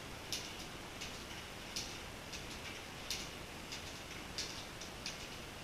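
Faint, irregularly spaced small clicks, about two a second, over a low steady hiss.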